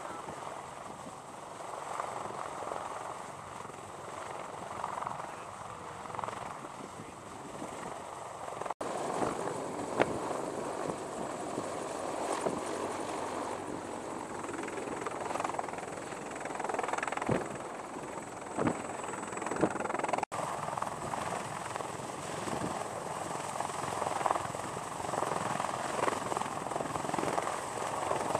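CH-53E Super Stallion heavy-lift helicopter hovering and flying with a Humvee slung beneath it: its rotors and turbine engines make a steady, dense rushing noise, with a few short sharp cracks along the way. The sound drops out for an instant twice, at edits.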